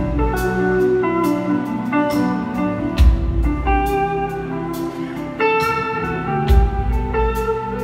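Live blues-rock band playing: an electric guitar lead of sustained notes over bass and drums, with cymbal strokes and two heavy low hits about three and a half seconds apart.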